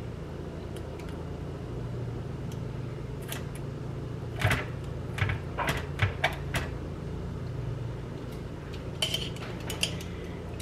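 Scattered light clicks and clinks of kitchen tongs against a glass jar of banana peppers as peppers are lifted out and laid on sandwiches. There is a cluster of clicks in the middle and a few more near the end, over a steady low hum.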